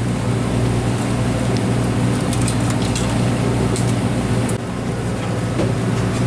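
Steady low mechanical hum from a large party fishing boat's running machinery, engine or generator, with a few faint handling clicks.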